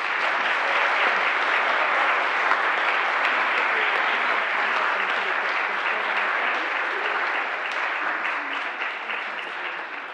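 Congregation applauding, a dense steady clapping that thins out and grows quieter over the last few seconds.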